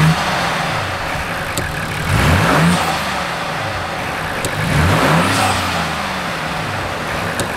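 Ford Bronco Raptor's 3.0-litre twin-turbo EcoBoost V6 idling and revved three times, each rev rising and falling back to idle. There is no blow-off psh on lift-off, because the factory blow-off valve recirculates the air back into the intake.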